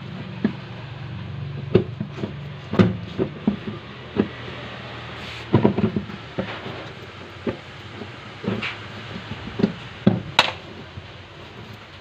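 Rubber buffer seal being pushed and worked by hand into its hole in a washing machine's plastic tub: irregular knocks and clicks of the rubber and plastic, the sharpest near the start and about three-quarters through, as it is seated.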